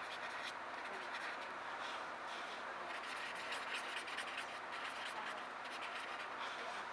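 Pencil scratching on sketchbook paper in short, irregular strokes over a steady background hiss.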